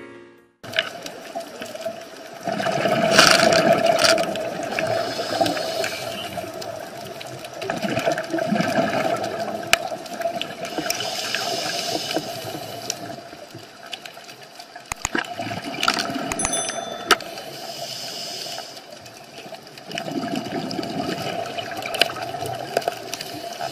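Underwater sound of a scuba diver: rushes of exhaled bubbles rising and falling every few seconds over a steady hum, with scattered sharp clicks.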